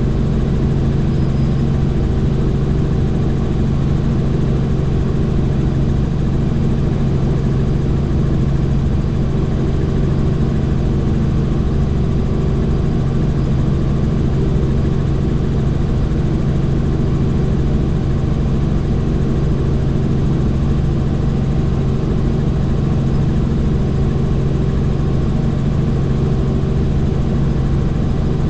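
Helicopter in flight: steady engine and rotor noise with a strong low hum, unchanging throughout.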